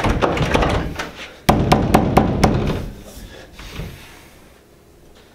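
A locked door being rattled hard at its knob, then pounded: about five quick knocks in a row about a second and a half in, dying away after.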